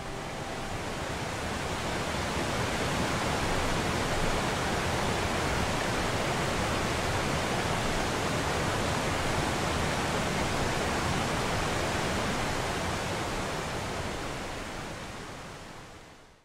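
Waterfall: a steady rush of falling water that fades in at the start and fades out near the end.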